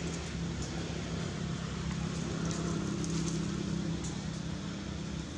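An engine running steadily: an even drone with a low held tone that does not change.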